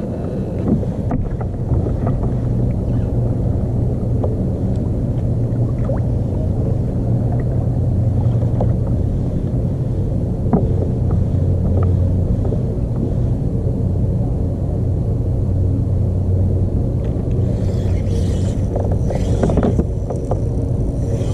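An engine running steadily with a low rumble and hum, with a little hiss near the end.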